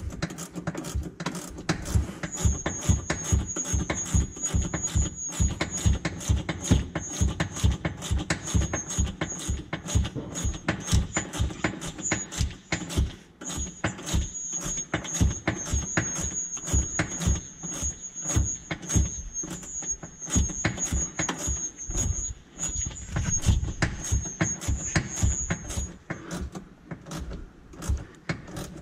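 Ratcheting wrench clicking in a steady run of short back-and-forth strokes as it runs a nut down on a golf cart's upper shock mount.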